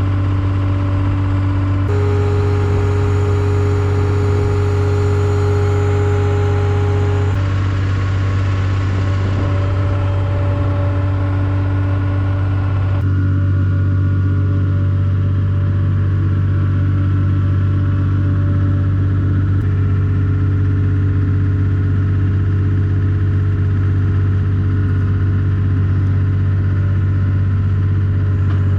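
Skid steer engine running steadily at constant speed, with its tone shifting abruptly a few times.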